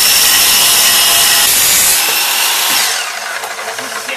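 Tradesman 10-inch miter saw with a carbide-tipped blade cutting through a steel bar, loud and harsh. About two to three seconds in the cut ends and the motor's whine falls as the blade spins down.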